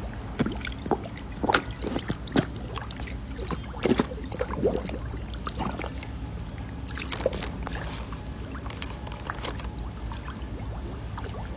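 Water splashing and slurping at a pond surface as feeding koi gulp at it, in irregular sharp splashes that come thickest in the first few seconds and again a little past the middle, over a steady low hum.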